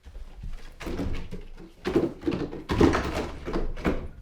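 Containers and cartons clunking and knocking as they are moved around in a fridge, an irregular run of knocks that is loudest about two and three seconds in.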